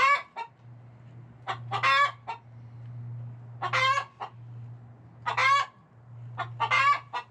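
Chickens clucking and squawking, one short call every second or two.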